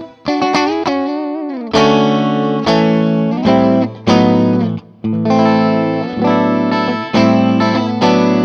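Seven-string multiscale electric guitar with three single-coil pickups wired in series, played through an amp. Chords and notes are struck about once a second and left to ring, with one note bent up and back down near the start.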